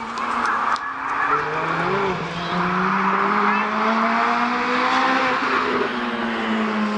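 Race cars' engines running at speed on the track, several engine notes climbing slowly in pitch as the cars accelerate along the straight.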